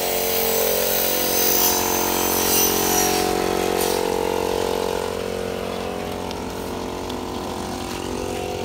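A machine motor running steadily: a constant hum made of several held tones, a little louder in the first half.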